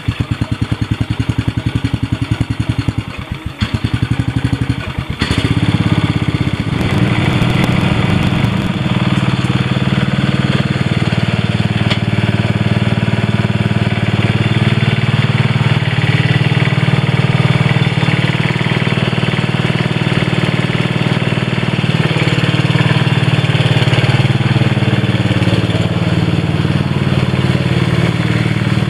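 Snapper Comet riding mower's engine, just started, running with an even pulsing beat and a brief dip a few seconds in. About five seconds in it is throttled up, then runs steadily louder while the mower is driven off.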